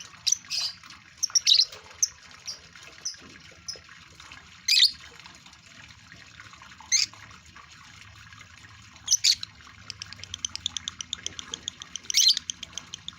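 Male lovebird in breeding condition chirping: sharp, high calls every second or two, then from about ten seconds in a rapid run of short chirps, over a steady hiss.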